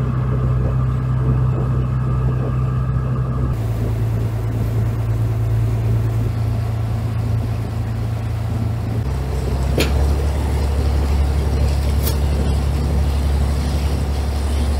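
Fishing boat's engine running under way: a steady, low drone whose tone shifts twice, about a third of the way in and again past halfway.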